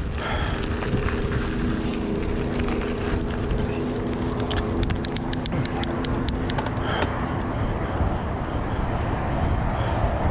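Steady wind and rolling noise of a mountain bike moving along a road with car traffic, a steady engine-like hum for the first several seconds and a quick run of sharp ticks around the middle.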